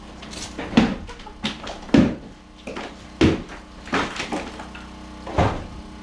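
Heavy blows of interior demolition: about five hard knocks and crashes, roughly a second apart, with smaller knocks between, as walls are smashed out by hand.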